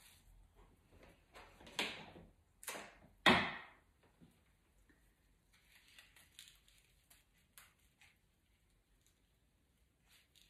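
Rustling of flower stems and foliage as stems are pushed and settled into a flower arrangement. Three louder rustles come close together about two to three and a half seconds in, then fainter rustling.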